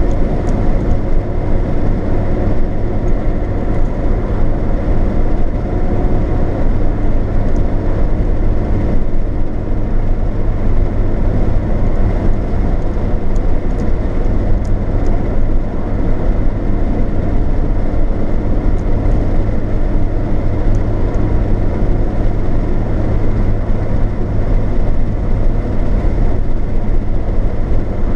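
Steady road noise inside a car cruising at motorway speed: an even, low rumble of tyres and engine that holds steady throughout.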